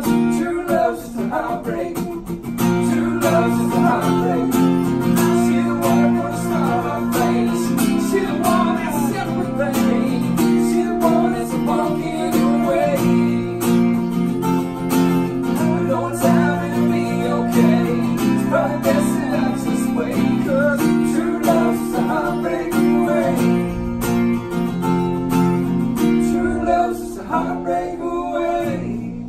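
Acoustic guitar strummed steadily, playing the chords of a slow country song.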